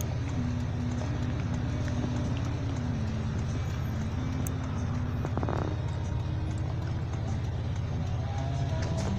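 Steady low rumble of a car cabin, the engine running while the car creeps along in traffic, with a quiet melody of held notes playing over it.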